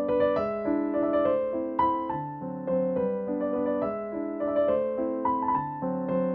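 Background music: a slow keyboard melody over held chords.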